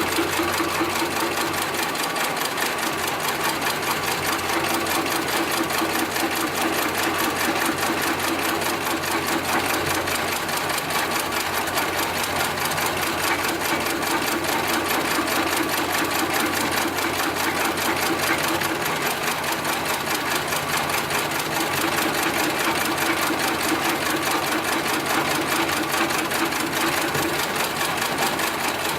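72008PLK heavy-duty programmable pattern sewing machine stitching continuously: a fast, even clatter of needle strokes over a motor hum that strengthens and eases in stretches of a few seconds.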